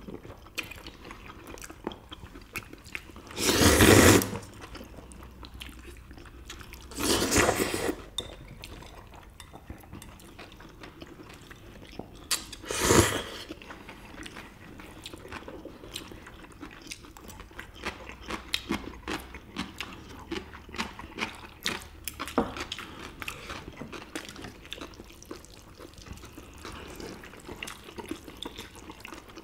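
People eating noodles and dumplings: chewing and small clicks of chopsticks and dishes throughout, with three loud noodle slurps about four, seven and thirteen seconds in.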